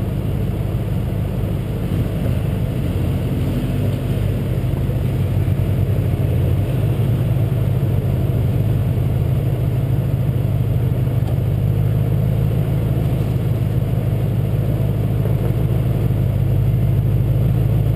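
Truck engine running steadily at low speed, heard from a camera mounted on the front of the truck, growing slightly louder about six seconds in.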